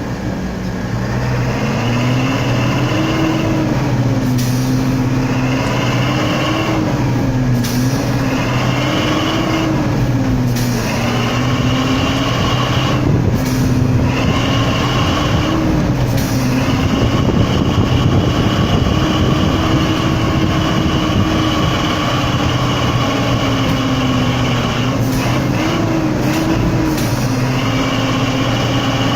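Logging truck's diesel engine working under load, its pitch rising and falling again and again, with a high whine over it. The whine breaks off briefly every few seconds.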